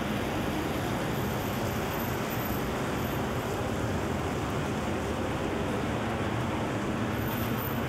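Steady rain on a city street at night, an even hiss mixed with the rumble of traffic.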